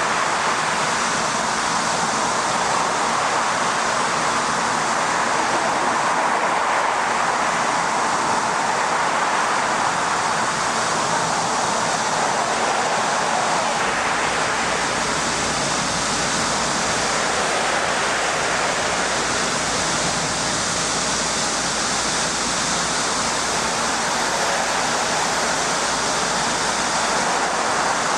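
Loud, steady, unbroken wash of water noise with no breaks or separate impacts.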